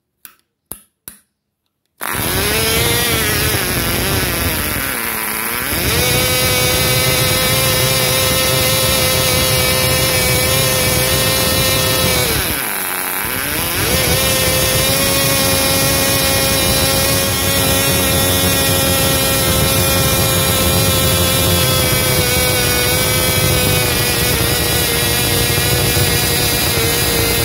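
Cox .049 Sure Start glow engine swinging a 5x3 propeller: a few clicks as the prop is flipped by hand, then the engine starts suddenly about two seconds in and runs at high speed with a high-pitched whine. Its speed sags sharply and recovers twice, the second time as the needle valve is being adjusted, then holds steady.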